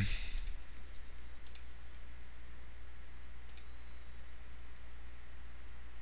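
Two faint computer mouse clicks, about a second and a half in and again near the middle, over a steady low hum.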